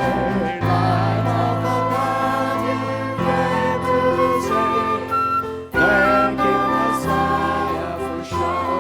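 Worship music: voices singing a melody over sustained instrumental chords and bass notes.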